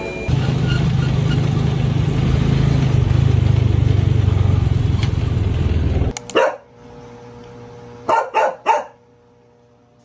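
A loud, steady low rumble that cuts off about six seconds in, followed by a dog barking: one bark, then three quick barks close together about two seconds later, over a faint steady hum.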